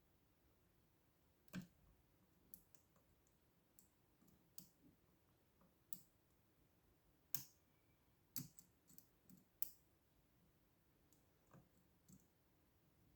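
Faint, irregular clicks of a lock pick working the pins inside a lock cylinder, a dozen or so scattered ticks with a few louder ones a little over halfway through.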